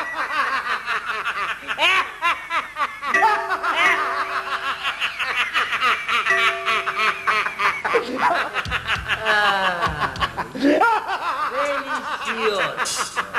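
People cackling with wild, continuous laughter. A steady held tone sounds twice in the middle.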